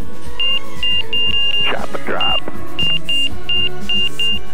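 Background music with a run of short, high beeping notes and a brief gliding sweep partway through.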